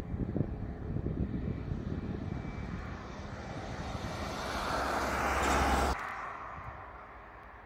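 Jet engines of a taxiing Ryanair Boeing 737 running: a low rumble that swells, with a rising whine, for about three seconds. It cuts off suddenly about six seconds in, leaving fainter, more distant engine noise.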